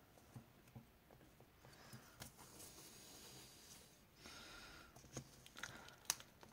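Faint paper rustle and light scattered taps as fingers press and smooth washi tape onto a planner page.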